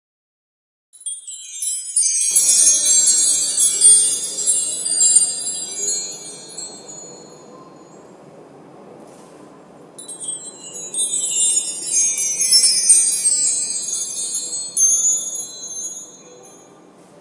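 Wind chimes tinkling in two swells of many high, overlapping rings, over a steady low rushing noise.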